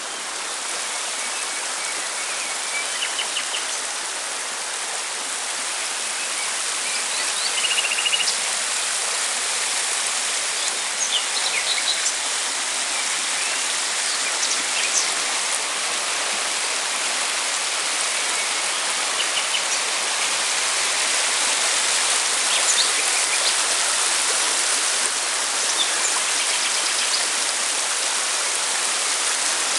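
A shallow river rushing over rocks and stones, a steady even rush of water. Brief bird chirps come now and then over it.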